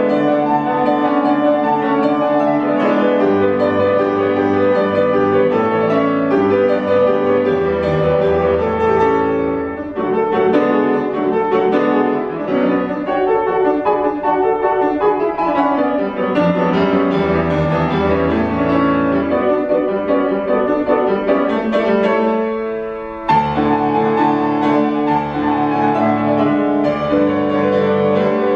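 Solo grand piano playing a Romanian folk dance piece: quick, dense runs of notes, with a brief break about 23 seconds in before the playing starts up again.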